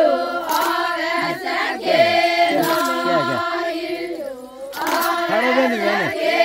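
A group of women singing a traditional Adivasi wedding song together, a short refrain repeated over and over with several voices overlapping and gliding up and down in pitch.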